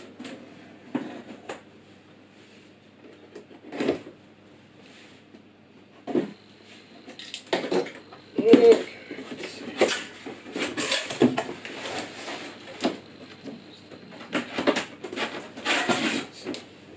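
Cardboard box being opened by hand: the flaps and panels scrape, rustle and knock in short bursts. A few scattered bursts at first, then busier handling from about six seconds in, with the loudest scrape a little after eight seconds.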